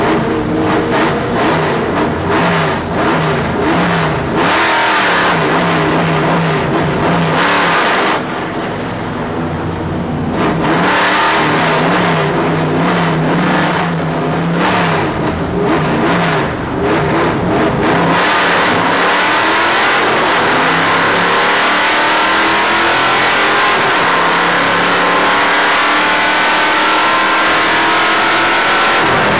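Stock car racing engine heard from inside the car's cabin. It runs at low speed with the throttle coming on and off, dipping briefly about a third of the way in. From about two-thirds through it accelerates hard, the revs climbing steadily.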